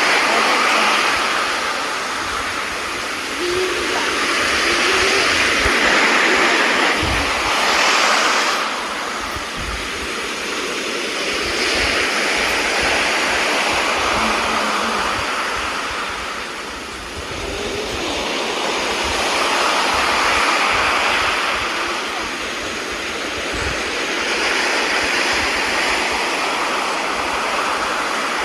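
Sea waves breaking on shore: a continuous rush of surf that swells and eases every several seconds.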